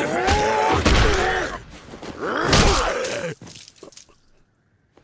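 Men yelling and screaming in a fight, over heavy thuds and crashes of blows. The din drops away about three and a half seconds in.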